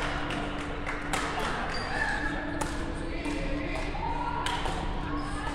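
Badminton singles rally: sharp racket strikes on the shuttlecock about every second and a half, with short shoe squeaks on the court floor. Voices murmur in the background over a steady low hum.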